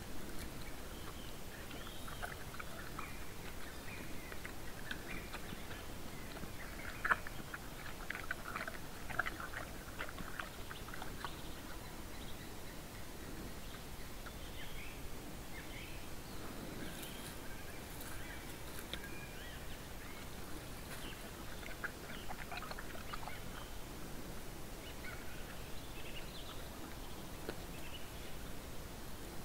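Bear feeding at a bait pile: scattered clicks and rustles, bunched about seven to eleven seconds in, with short bird calls in the background.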